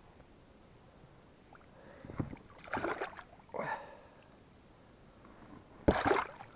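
Water sloshing and splashing beside a small boat, with a few scattered splashes in the middle. Near the end comes one short, sharp splash, the loudest sound, as a small pike splashes at the surface right beside the boat.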